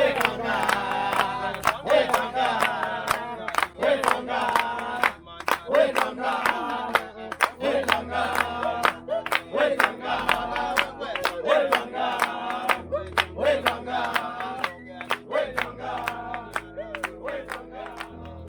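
A group singing a song together over a steady, sharp percussive beat of a few hits a second.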